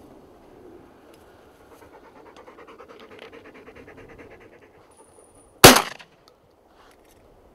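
A single very loud shotgun shot about two thirds of the way in, fired with a steel-shot cartridge, dying away within half a second. Before it, a soft, quick rhythmic sound.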